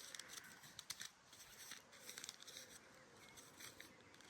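Faint, scattered crisp clicks and rustles of a paper seed packet being handled while sowing beetroot seeds, over near-quiet background.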